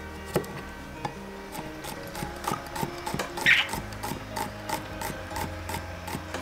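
Chef's knife slicing garlic cloves on a wooden cutting board: a steady run of quick, sharp taps of the blade striking the wood, about three a second.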